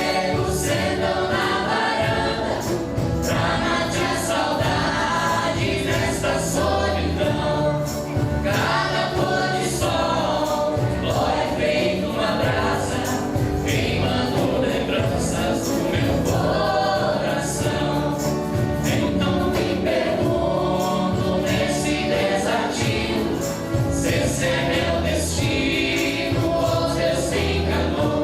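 A choir singing with instrumental accompaniment, a song in full swing.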